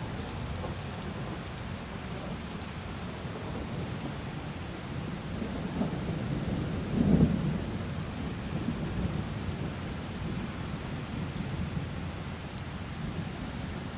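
Thunderstorm ambience: a steady low rumble with rain-like hiss, and one louder roll of thunder about seven seconds in.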